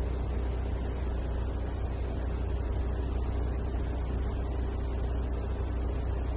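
Steady low rumble of a car's engine and cabin noise, heard from inside the car.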